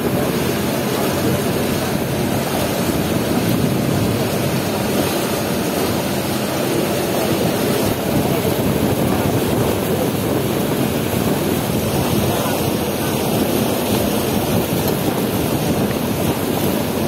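Riverboat's engine running steadily under way, mixed with rushing water and wind noise on the microphone.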